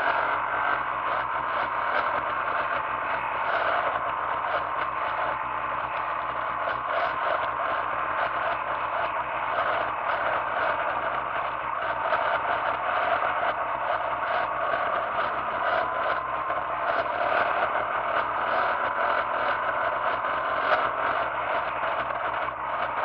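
Motorcycle riding along at road speed, heard from a camera mounted on the bike: a steady rush of wind and rattle, with the engine note drifting slowly up and down underneath.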